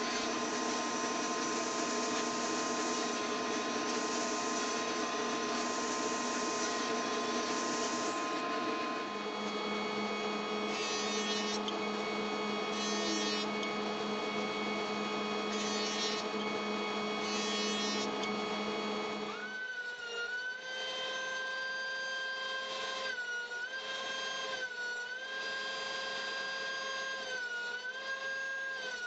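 Woodworking power tools running in turn: first the table saw and jointer as steady machine hum, then, from about two-thirds through, a benchtop thickness planer whose motor pitch dips and recovers every second or two as boards feed through it.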